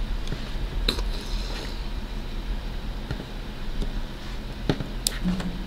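A few sharp plastic clicks and light handling noise as a plastic action figure and its snap-on translucent effect piece are moved and fitted, over a steady low hum.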